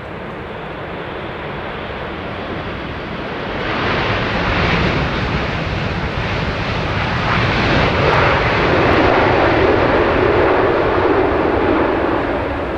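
Boeing 747-8F freighter's four GEnx jet engines on the landing rollout just after touchdown, swelling to a loud roar about four seconds in as reverse thrust is applied, and easing off slightly near the end as the aircraft slows.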